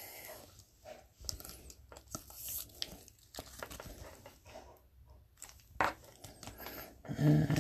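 Trading cards and card-pack wrappers being handled: irregular rustling and crinkling with light ticks, and a man's voice starting near the end.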